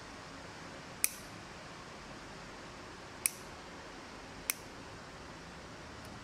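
Four short, sharp clicks spaced one to two seconds apart, the last one faint, over a steady hiss.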